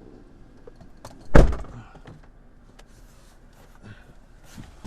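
A car door slamming shut once: a single heavy thunk about a second and a half in.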